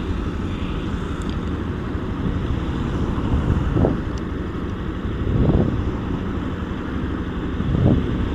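Yamaha YS Fazer 150's single-cylinder engine running steadily on the move, under heavy wind noise on the camera microphone. Three brief louder whooshes come about four, five and a half and eight seconds in.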